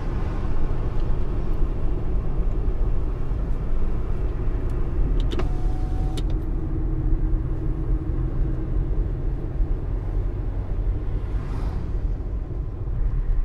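Car driving, a steady engine and road rumble heard from inside the cabin, with a few light clicks about five to six seconds in.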